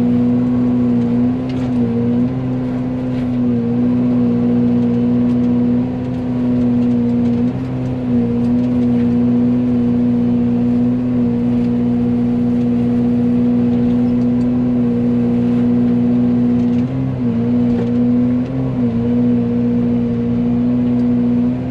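Excavator running at working speed while driving a Fecon FMX36 forestry mulcher head. It makes a loud, steady drone held at one pitch, which sags briefly a few times as the drum takes load mowing saplings.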